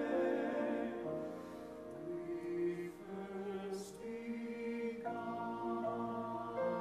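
Small church choir singing slow sustained chords in harmony, the chord changing every second or so and growing softer in the middle, with a brief sung 's' just past the midpoint.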